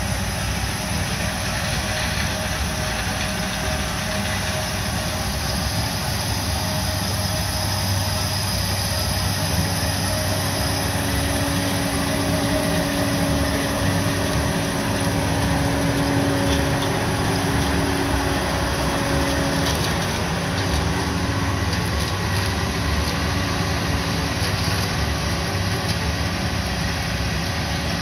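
John Deere 9600 combine harvesting corn: its diesel engine and threshing machinery make a steady, unbroken drone.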